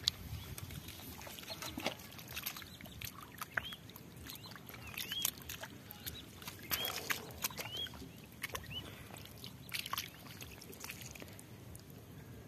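Bare feet and hands squelching and splashing in wet rice-field mud and puddle water, in scattered soft clicks and slaps. Several short, high chirps sound through the middle.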